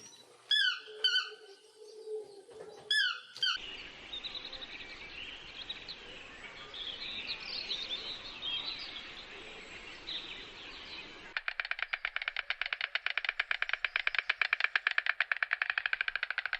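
Songbirds singing: a few sharp, down-slurred calls, then varied twittering, and from about two-thirds of the way through a fast, even rattling trill.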